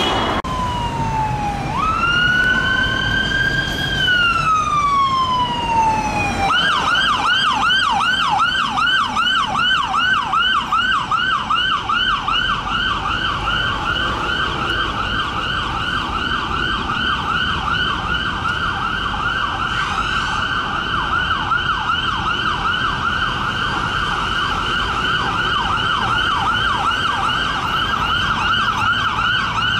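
Police siren on an unmarked Mercedes Vito van: a slow wail that rises, holds and falls over the first six seconds, then switches to a fast repeating yelp that runs on. Road traffic noise sits underneath.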